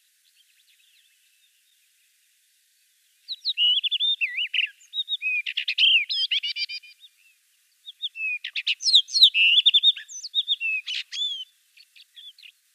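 Male red-winged blackbird calling: starting about three seconds in, two bouts of quick, high whistles, chirps and trills a second apart, then a few faint chips near the end.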